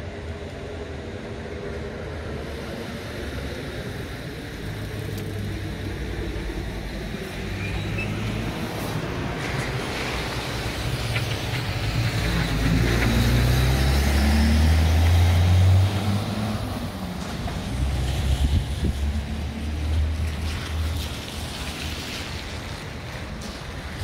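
Street traffic: a motor vehicle's engine rises and grows louder as it passes close by, loudest about two-thirds of the way through, over a steady low rumble of road noise.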